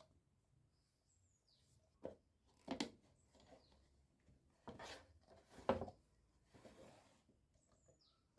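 Quiet room with a few short rustling knocks, likely from parts being handled, and faint bird chirps.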